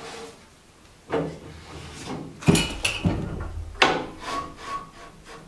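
Hand handling on a stopped bandsaw as its rip fence is slid and set on the table, with a heavy wooden thump about two and a half seconds in. That thump is the loudest sound. A sharp metal click follows, then some scraping.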